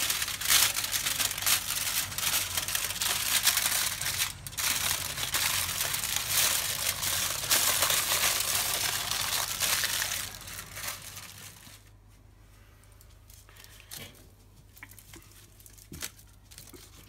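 Aluminium foil crinkling and crumpling as it is folded by hand around a corn cob, dense and continuous for about eleven seconds, then dying down to a few faint taps.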